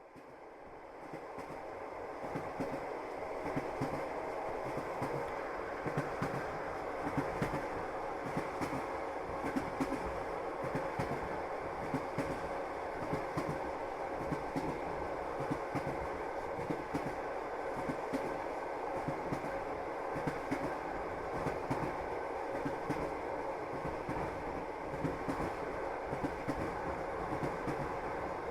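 Passenger train running, its wheels clacking over the rail joints above a steady rumble. The sound fades in over the first couple of seconds.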